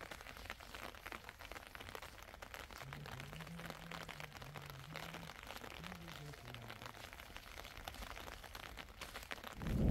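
Light rain pattering, a dense run of faint drip ticks. Just before the end a loud rumble of heavy rain and thunder sets in suddenly.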